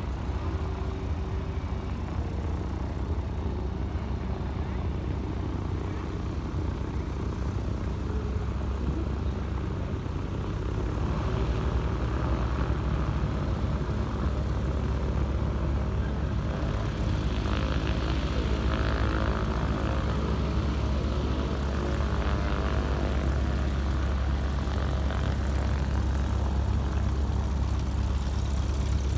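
Single-engine Cessna light plane's piston engine and propeller running as it rolls along the runway. It gets louder about eleven seconds in, and its pitch slowly shifts as it nears.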